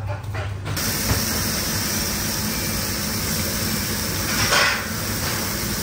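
Marinated rack of lamb searing in hot oil in a metal pan: a steady sizzle that sets in sharply about a second in and swells briefly near the end.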